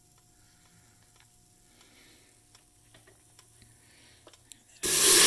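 A few faint clicks over quiet room tone, then near the end milk starts pouring from a carton into the stainless steel inner pot of an Instant Pot: a sudden loud, even rush of pouring liquid.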